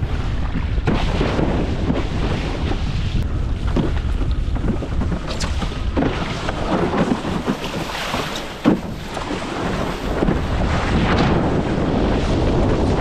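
Heavy wind buffeting the microphone while windfoiling on open water, with water splashes and spray striking now and then, and one sharp knock about two-thirds of the way in.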